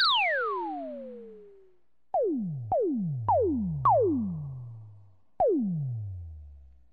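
Synthesized sci-fi laser shots: electronic zaps that each start with a click and sweep steeply down in pitch as they fade. One long shot, then four in quick succession about half a second apart, then one more near the end.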